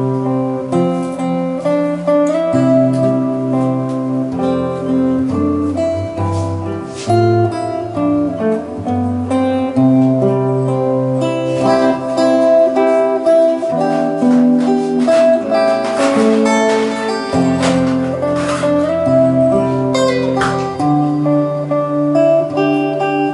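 Solo steel-string acoustic guitar with a capo, played fingerstyle: a picked melody over a changing bass line, with a few sharp strummed chords about two-thirds of the way through.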